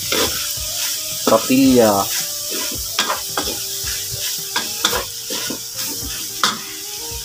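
Sliced pork intestines sizzling in a hot wok of margarine and olive oil, stirred with a wooden spatula that scrapes and knocks against the metal pan again and again.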